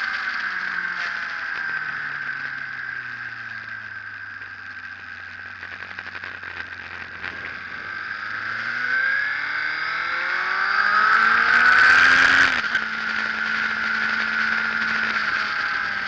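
Sport motorcycle engine heard onboard at a track: revs fall as the bike slows for a corner, stay low while it leans through, then climb steadily under hard acceleration until they drop off suddenly about twelve and a half seconds in, at a gear change or a roll-off of the throttle. Wind rushes past throughout.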